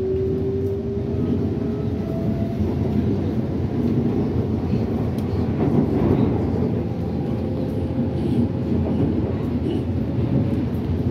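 R151 metro train running on the line, a steady rumble under a motor whine that rises slowly in pitch as the train picks up speed.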